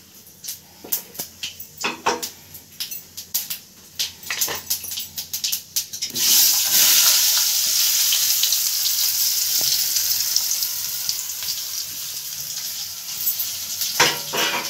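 Brinjal pieces frying in hot oil in a kadai. There are a few light clicks and taps at first, then about six seconds in a loud sizzling hiss starts suddenly as the pieces hit the oil, and it carries on steadily. A couple of sharp knocks come near the end.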